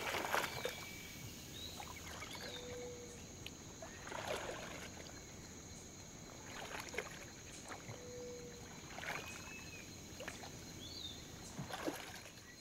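Slow, regular splashes in still pond water, about one every two seconds, with a few bird chirps over a steady high hiss; the sound fades near the end.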